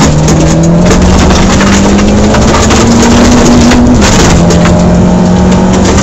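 Rally car engine pulling steadily in gear, its pitch rising slowly, then dropping at a gear change about four seconds in. Loose gravel crackles and pings against the underside of the car throughout.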